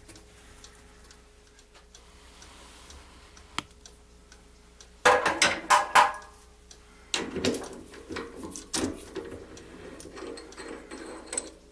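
Metal clinks and knocks of hand tools and a chuck key against a metal lathe's three-jaw chuck, in two bursts about five and seven seconds in, after a quiet start.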